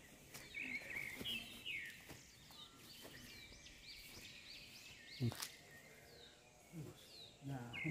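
Small birds chirping and calling over and over in short sweeping notes, with the scuff and thump of footsteps and camera handling; the loudest thump comes about five seconds in.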